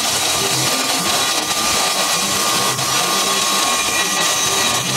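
A woodworking power machine running steadily: a constant whine over a dense, even rush of noise that does not change.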